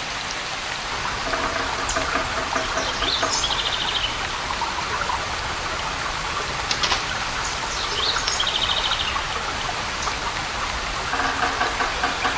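Waterfall's steady rushing water with birds calling over it: a high trilled call about three seconds in and again about eight seconds in, and lower repeated calls near the start and near the end.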